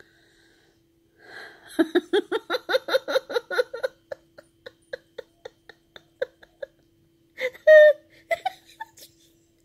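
A woman laughing in a fit: after about a second of quiet, a quick run of laughter pulses that thins out into scattered giggles, then one louder burst of laughter near the end.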